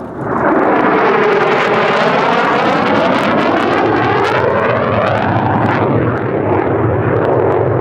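Loud jet noise of an F-35A Lightning II's single F135 afterburning turbofan as the jet flies past. It swells in about half a second in and holds, with a sweeping, phasing whoosh as it goes by.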